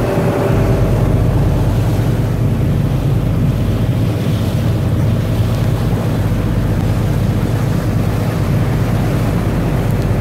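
A boat's engine running steadily under way, with water rushing past the hull and wind noise on the microphone.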